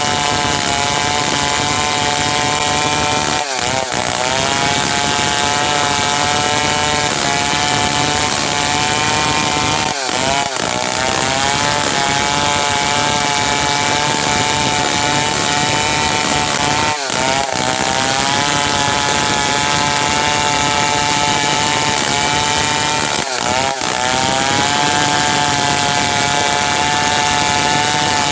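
Stihl 070 two-stroke chainsaw running hard, sawing merbau ironwood. Its engine note holds steady, with a brief dip and recovery in pitch about every six to seven seconds.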